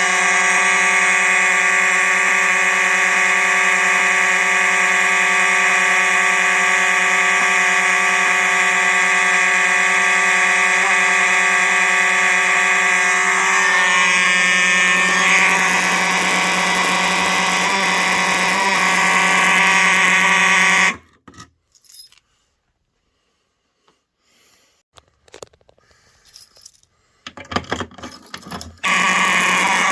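Simplex 4903 and 4901 mechanical fire alarm horns sounding continuously together on battery-filtered DC, a steady, loud buzzing horn tone. About two-thirds of the way through it cuts off abruptly, leaving near silence with a few faint clicks, and the horns start sounding again just before the end.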